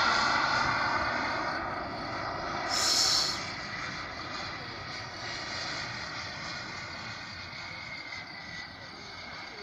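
Radio-controlled model jet's engine whining as it flies past, the whine fading and dropping slightly in pitch as the jet moves away. A brief burst of hiss sounds about three seconds in.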